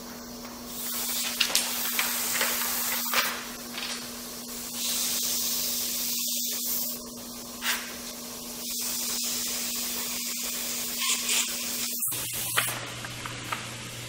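Airbrush spraying paint in a series of short hissing bursts, each lasting a second or two. Under the spraying there is a steady low hum that changes to a lower hum about twelve seconds in, and a few light ticks.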